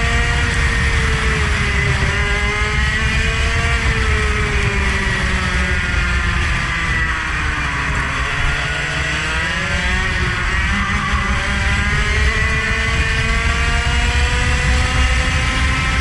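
Engine of a vehicle lapping a track at high revs. The pitch slides down to a low point about halfway through, then climbs steadily again, over a heavy low rumble.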